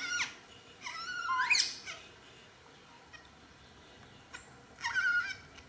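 Newborn baby monkey crying with high-pitched squeals while being bathed. There are three cries: a short one at the start, a longer one rising in pitch about a second in, and another near the end.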